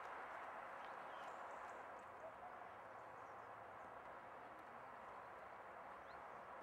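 Faint, steady outdoor background noise, with no distinct event standing out.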